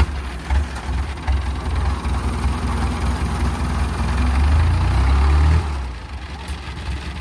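Diesel engine of a homemade tracked rice-hauling machine running with a steady low rumble. It grows louder for about five seconds, then eases off.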